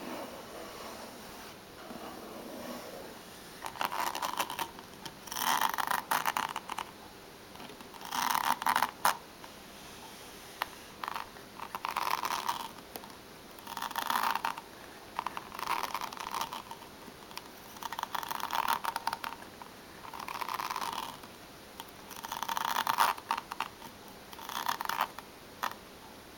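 Long fingernails scratching and tapping over a hardback book's page edges and cover, in scratchy bursts of about a second, roughly every two seconds.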